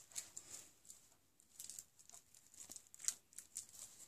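Faint, scattered rustling and crinkling of a small soap's packaging being handled and picked at, with a few soft ticks; the sharpest comes about three seconds in.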